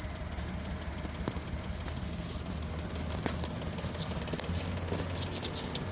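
2001 Honda Odyssey's 3.5-litre V6 idling unevenly with light scattered ticking. It is running on five cylinders: cylinder 4 is misfiring (code P0304) with its coil pack out.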